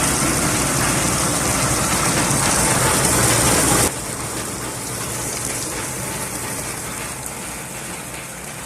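Small mango washing machine running: water gushing and spraying over the fruit with a steady motor hum underneath. The sound drops suddenly about four seconds in and carries on more quietly.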